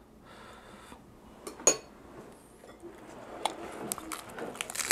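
A metal spoon clinks once, sharply, against a dish. Then come crisp crunches of a romaine lettuce wrap being bitten, growing denser toward the end.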